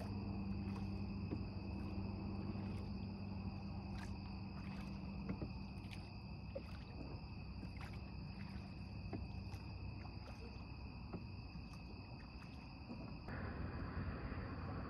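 Crickets trilling, a steady high-pitched tone without a break, with faint irregular clicks scattered through it.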